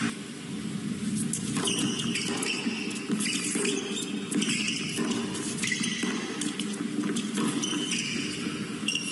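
Indoor arena ambience between tennis points: a steady crowd murmur with short high squeaks, typical of tennis shoes on the hard court.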